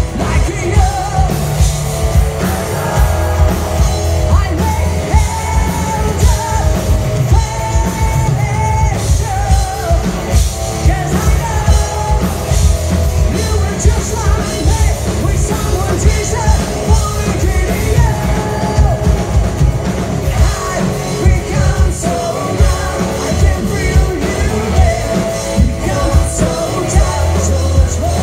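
Live rock band playing loud through a club PA, with electric guitars, bass guitar, a drum kit keeping a steady beat, and a singer, heard from the audience.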